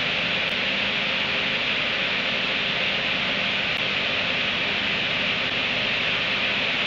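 Steady, even hiss with a faint hum underneath and no distinct sounds standing out.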